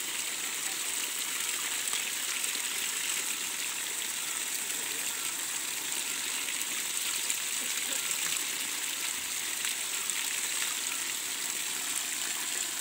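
Water pouring steadily from two wooden spouts and splashing onto the stones and ground below.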